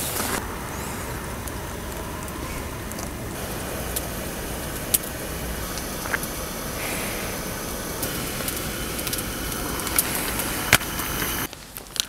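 Portable butane canister stove burner running with a steady gas hiss, with a short louder rush right at the start. A few sharp ticks are heard over it.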